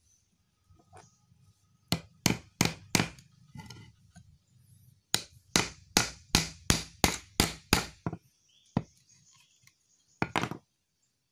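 Claw hammer driving a blunt-tipped nail into a thin strip of wood, in quick sharp blows: four about two seconds in, then a steady run of about eight. One more knock, then another near the end.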